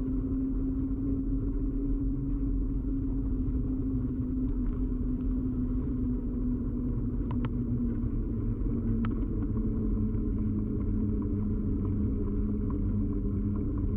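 Ride noise of a bicycle, picked up by a camera fixed to the bike: a steady rumble with a hum that drops slightly in pitch. A couple of sharp ticks come about seven and nine seconds in.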